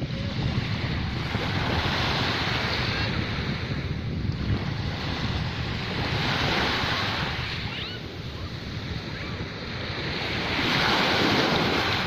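Small waves breaking and washing up a sandy beach, the surf swelling about three times, loudest near the end, over a low rumble of wind on the microphone.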